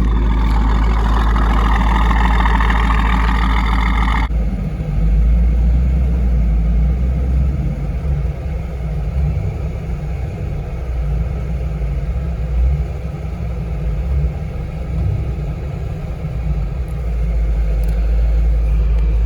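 Car engine running at low speed with a deep, steady exhaust rumble as the car is moved slowly. A loud hiss covers the first four seconds and stops abruptly.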